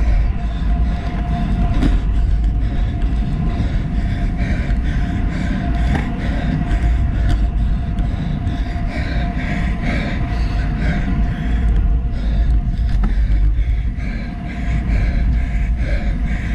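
Wind buffeting the microphone of a handlebar-mounted action camera, over the rolling road noise of a road bike on Specialized Roval Rapide CLX50 carbon wheels moving at speed on asphalt. A faint steady hum runs underneath.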